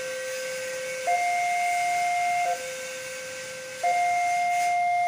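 Railway level-crossing warning alarm sounding: an electronic two-tone signal alternating between a lower and a higher note, each held about a second and a half, low-high-low-high. It is the warning that a train is approaching the crossing.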